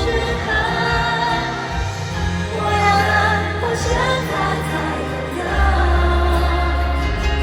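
Live pop ballad played through an arena sound system: sung vocals with choir-like backing over a band with heavy bass.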